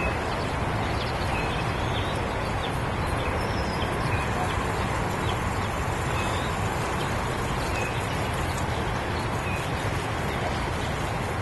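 Steady rushing of river water pouring through the dam, with faint short high chirps now and then.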